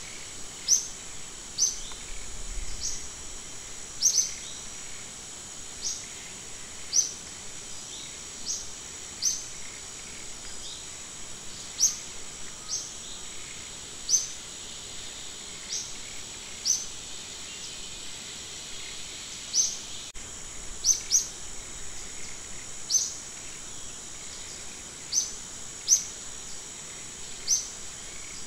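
Short, high rising bird chirps repeating irregularly, about one every second or two, over a steady high-pitched insect drone.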